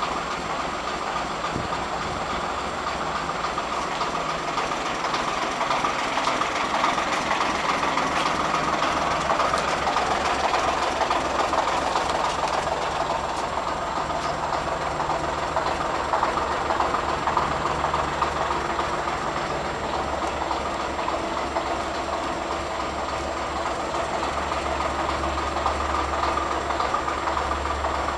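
Lister JP3 three-cylinder diesel stationary engine running steadily at a constant speed.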